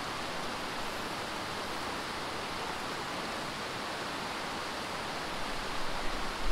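Steady rushing of a fast, snowmelt-swollen creek flowing over a riffle. A low, uneven rumble creeps in near the end.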